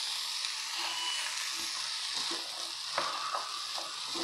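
Chopped carrot, brinjal, capsicum and potato sizzling in a little sunflower oil in a nonstick frying pan, a steady hiss, with a light click about three seconds in.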